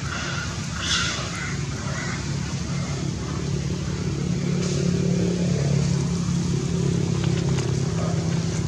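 A motor vehicle engine running with a steady low hum, growing a little louder from about three seconds in. A few short higher-pitched sounds come in the first two seconds.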